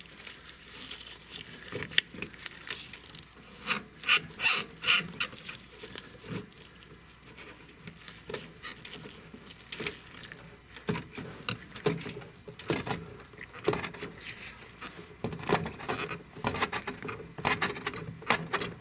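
Hand tools scraping, clicking and rubbing against metal in irregular bursts as a fitting on a car's fuel tank is worked loose.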